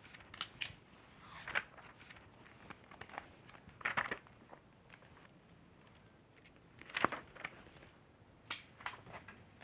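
Magazine pages rustling and being turned: faint, irregular papery crinkles and swishes, a few of them a little louder.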